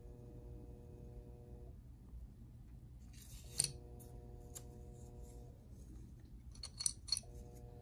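Small metal pendant with a rhinestone bezel clicking and tapping as it is handled and set down on a heat press mat: a single click about halfway, then a few quick clicks near the end. Under it, a faint steady hum and a faint held tone that comes and goes.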